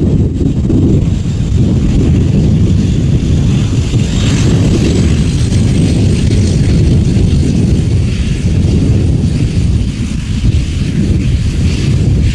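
Embraer EMB-120 Brasilia's twin turboprop engines running at taxi power, a thin steady high whine over heavy wind buffeting on the microphone.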